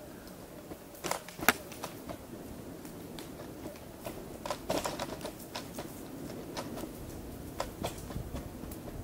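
Irregular sharp clicks and taps, a dozen or so spread unevenly, the loudest about one and a half seconds in, over a steady low background rumble.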